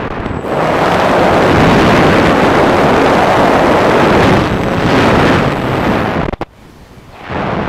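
Loud rush of airflow buffeting the onboard camera's microphone on a Multiplex Solius RC plane in fast flight, swelling through a steep banking turn. It drops away suddenly about six seconds in and rises again near the end.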